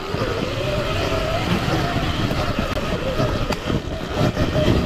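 Sur Ron Ultra Bee electric dirt bike riding along: the motor's whine wavers up and down with the throttle, over a steady low rumble and scattered knocks and rattles from the bike on rough ground.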